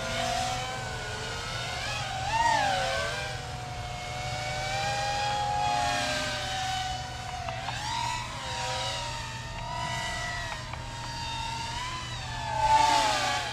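FPV freestyle quadcopter's brushless motors and propellers whining from a distance, the pitch rising and falling as the throttle changes, with louder swells a couple of seconds in and near the end.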